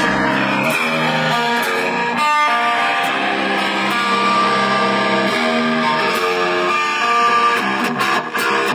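Electric guitar played through an amplifier on its own, without drums: a line of sustained chords and single notes that change every second or so.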